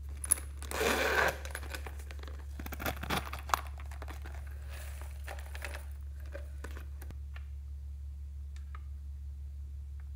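Handling of a small zippered faux-leather pouch: a sharp click, a short rustle about a second in, then a few light clicks and clinks around three seconds in. Faint handling sounds follow over a low steady hum.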